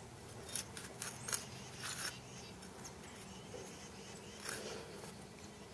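Faint, short scrapes and rustles of dry dirt being packed and patted down by hand, several in the first two seconds and one more later.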